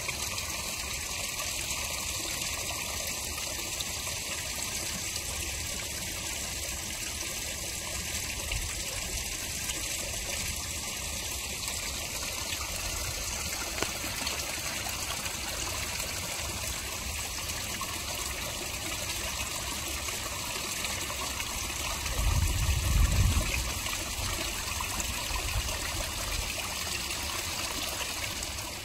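Water trickling and splashing steadily into a garden koi pond from a small rock waterfall. About two-thirds of the way through, a brief low rumble rises over it for a couple of seconds.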